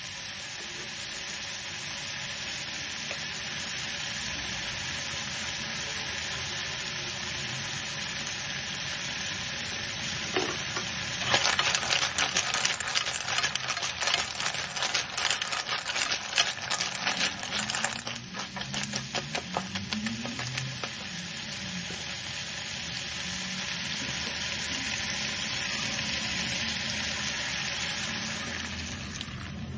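Snails in their shells sizzling in oil in a frying pan. From about a third of the way in, a spatula stirs them for several seconds and the shells clatter against each other and the pan. Near the end the sizzle dies down as water is poured in.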